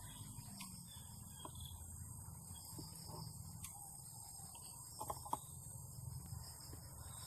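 Faint steady chirring of insects, crickets or similar, over a low rumble of handling or wind noise, with a few small clicks about five seconds in.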